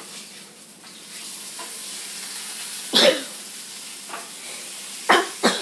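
Meat sizzling in a frying pan, a steady hiss. A sharp clatter about three seconds in is the loudest sound, and two shorter ones come near the end.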